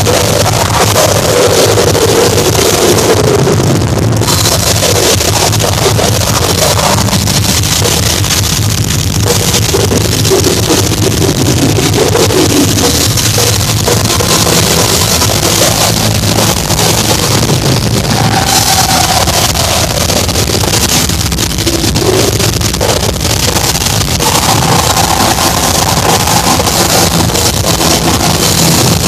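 A heavy metal band playing at full volume. Distorted electric guitars and drums blend into a dense, overdriven wall of sound, with a few held melodic notes rising out of it in the second half.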